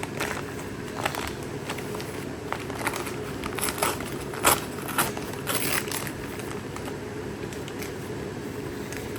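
Plastic shipping bag and packaging crinkling and crackling as it is handled and opened by hand, with a run of sharp crackles and clicks over the first six seconds, then only a steady low background hum.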